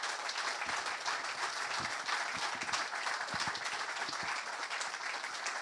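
Audience applause: many people clapping at once, holding steady.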